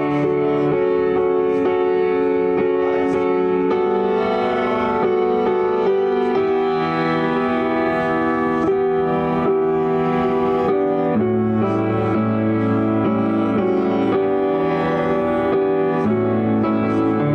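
Slow instrumental hymn music of bowed strings and piano, with held chords that change every second or two.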